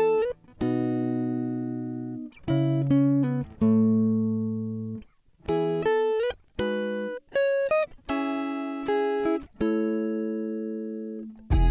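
Background music: a plucked guitar melody, single notes and chords that ring and fade, in short phrases with brief pauses between them.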